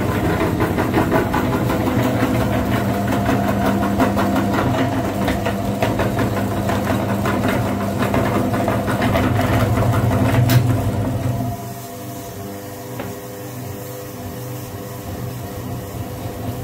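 Belt-driven meat grinder running, its auger crushing a soft egg-shaped object: a steady motor hum under a dense crunching rattle. A sharp click about ten seconds in, after which it runs on more quietly with the load eased.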